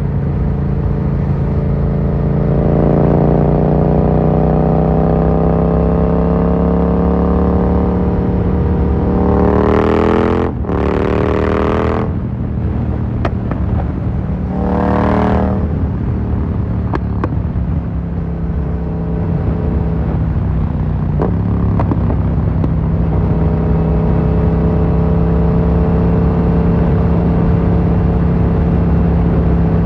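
Yamaha MT-07's parallel-twin engine through an Akrapovic carbon full exhaust, pulling hard with the pitch climbing for several seconds. It cuts off sharply for a moment, surges again briefly, then settles into a steady cruise. A few sharp cracks are heard around the middle.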